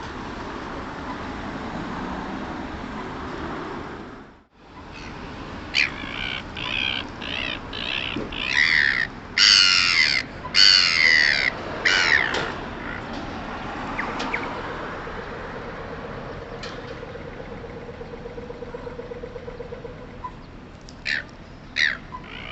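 Gulls calling: a run of loud, harsh squawks from about six seconds in until about twelve seconds, then a couple more near the end. The steady background rumble at the start drops out abruptly about four seconds in.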